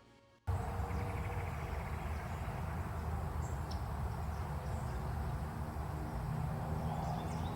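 Outdoor ambience: a steady low rumble with a few faint, short bird chirps, starting abruptly as closing music cuts off about half a second in.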